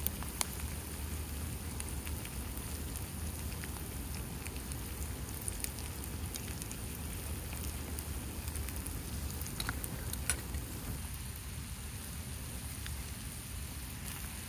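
Food sizzling in a frying pan: a steady sizzle with scattered small pops and crackles.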